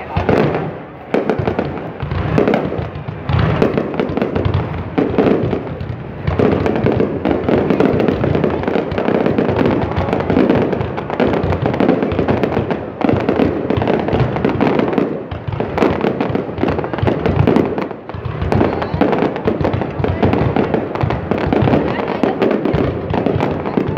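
Aerial fireworks display in a dense barrage: shells bursting overhead in rapid, overlapping bangs and crackles with hardly a pause.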